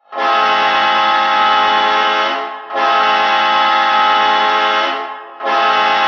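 Hockey arena goal horn sounding three long, steady blasts of one rich tone, each about two and a half seconds long, with short breaks between them.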